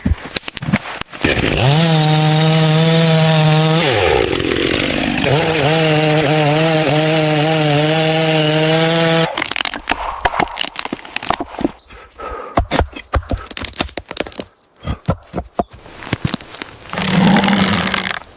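A power saw's motor running flat out for about eight seconds, its pitch dipping briefly near the middle before picking up again, then cutting off abruptly; irregular knocks and clatter follow.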